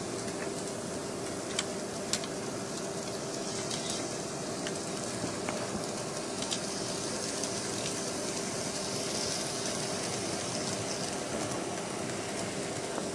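N-scale model train running on its track: the locomotive's small electric motor gives a steady whine over a running rattle, with a few light plastic clicks.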